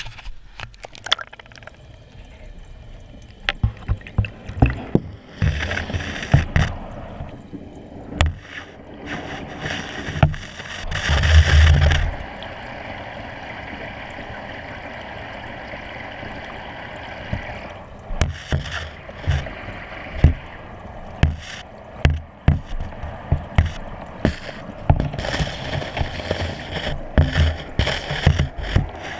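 Water sloshing and gurgling around a camera in its waterproof housing as it is lowered into the sea and held underwater, with many irregular clicks and knocks and a loud rushing burst about eleven seconds in.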